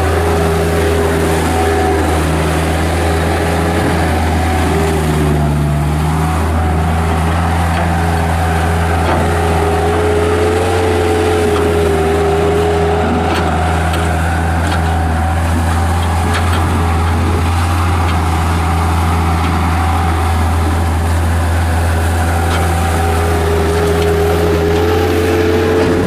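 Bobcat 773 skid steer loader's Kubota diesel engine running steadily at working speed as the machine drives about and pushes its bucket into dirt, a constant low drone with a steady higher tone over it.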